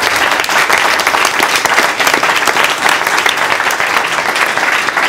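Audience applauding: many people clapping at an even, steady level.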